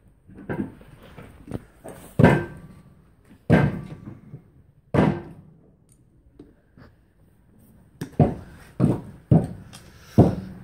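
Metal knocks and clanks from pliers and a steel bar working at the hub nut of an Opel Corsa rear brake drum clamped in a vise. There are a handful of separate knocks a second or so apart, then a quicker run of about five near the end.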